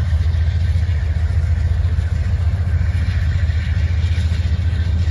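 Diesel locomotives of a Norfolk Southern freight train passing, a steady low engine rumble.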